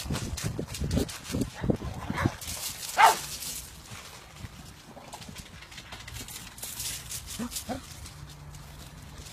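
Dog barking in short bursts over the first few seconds, the loudest about three seconds in, then quieter.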